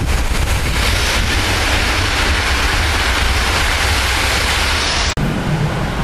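Electric multiple unit passing close by at speed: a loud, steady rush of wheels on rail and air, over low wind buffeting on the microphone. It breaks off abruptly about five seconds in, leaving only the wind rumble.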